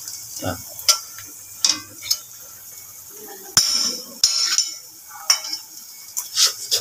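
Metal ladle and fork clinking and scraping against a metal wok and a plate in a string of short, separate clicks and scrapes.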